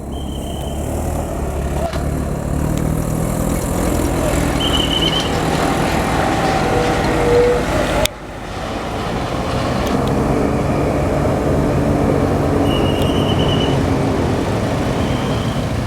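Tourist bus engines running past on the road, growing louder as each approaches, with an abrupt cut about halfway through. A few short high chirps sound over the engine noise.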